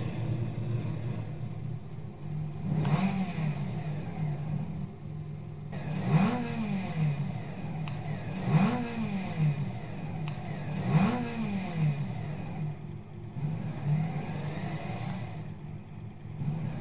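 Revving motor sound with a steady running hum underneath. Its pitch repeatedly climbs and falls back in blips about every two and a half seconds, the three strongest near the middle, some with a sharp tick at the peak.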